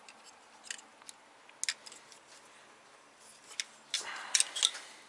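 Light plastic clicks and rattles of a wiring harness and its connectors being handled by hand, with a burst of rustling and sharper clicks near the end.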